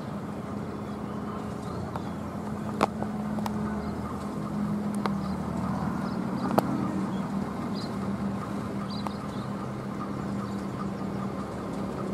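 An engine running steadily, a low drone that rises slightly in pitch around the middle, with a few sharp clicks, the loudest about three seconds in.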